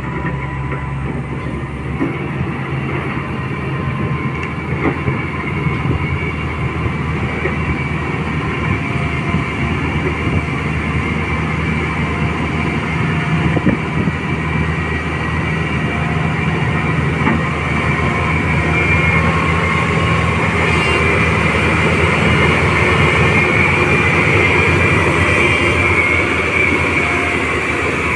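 LiuGong 848H wheel loader's diesel engine running steadily under load as it pushes iron ore with its bucket, growing louder in the second half as the machine comes close.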